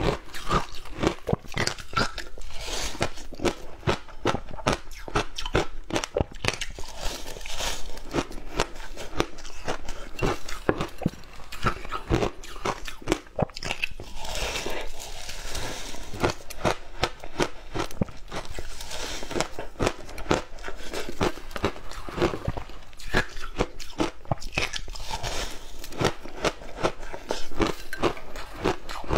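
Packed shaved ice coated in passion fruit pulp being bitten and chewed close to the microphone: dense, continuous crunching and crackling, fullest about halfway through when a fresh bite is taken.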